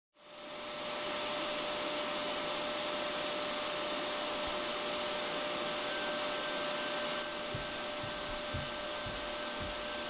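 Vacuum cleaner running steadily, a constant hum with a steady whine, fading in over the first second. A few soft low bumps come near the end.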